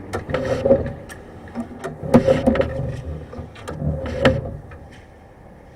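Sewer inspection camera's push cable being fed down a drain line, sliding and rattling in three bursts with sharp clicks.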